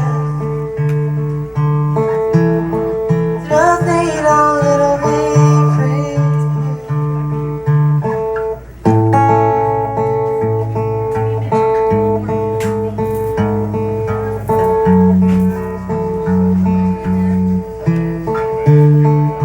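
Acoustic guitar played live in a steady repeating pattern, with a singing voice rising over it about four seconds in. The playing breaks off for a moment near the middle and picks up again.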